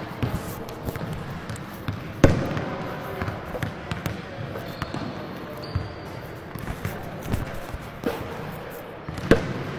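Basketballs bouncing on a hardwood gym floor: irregular thuds, the loudest about two seconds in and near the end.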